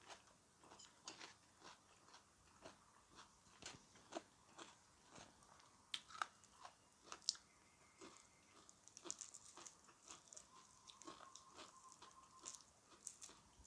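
A person chewing and crunching crisp food, close to the microphone: irregular, faint crunchy clicks with no speech.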